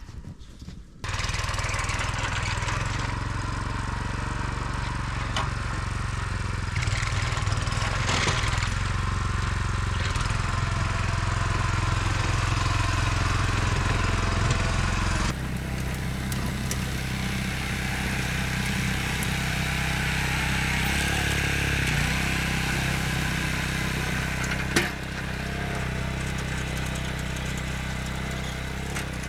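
Small engine running steadily, its sound changing abruptly about a second in and again about halfway through, with one sharp knock near the end.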